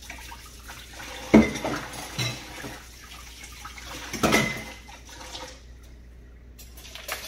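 Kitchen tap running into a sink, with a few knocks and clinks of kitchenware, two of them louder. The water stops about two-thirds of the way through, and a few light clicks follow.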